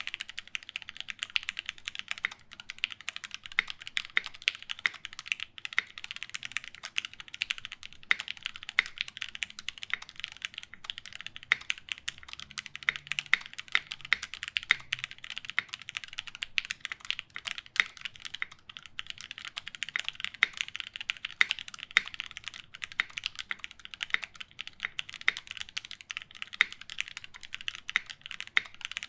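Continuous fast typing on a Taichi TKL mechanical keyboard with lubed linear Gateron Black KS-3 switches, FR4 plate and GMK Pristine keycaps: a dense run of keystroke clicks, with now and then a louder strike, likely the spacebar or another stabilised key.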